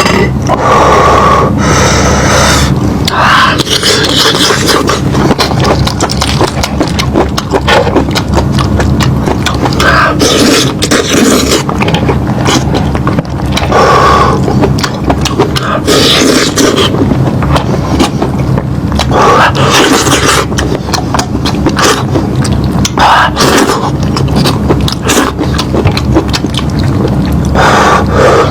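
Close-up eating sounds: someone chewing and gnawing meat, with many irregular wet clicks and scraping noises, loud.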